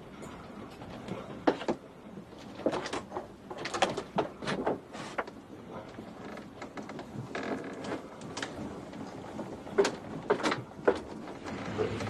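Irregular knocks, thumps and clatters of wood and fittings: searchers moving about and banging around aboard a small wooden fishing boat.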